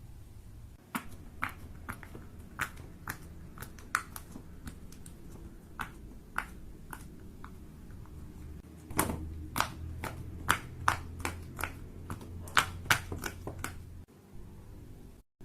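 Sharp, separate clicks and taps from fidget toys being handled, irregular at first and coming faster from about the middle on.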